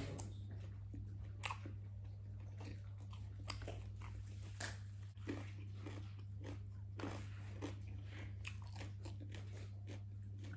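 A person chewing and biting into fried chicken with rice, with irregular crunches every half second or so, over a steady low hum.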